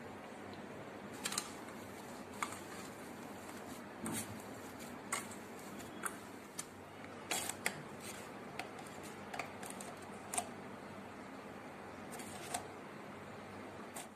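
Steady faint hiss with about a dozen light, irregular clicks and taps.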